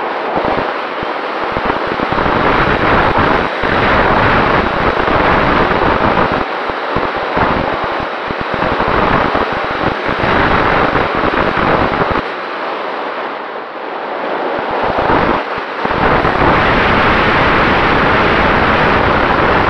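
Wind rushing over the onboard action camera's microphone on a flying RC plane, with the faint steady whine of its Sunnysky 2212 brushless electric motor and 7x5 propeller underneath. The rush eases for a few seconds past the middle, then comes back louder.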